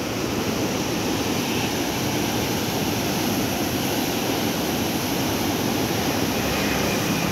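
Water rushing out through an open barrage gate and churning into the river below, a steady rushing noise.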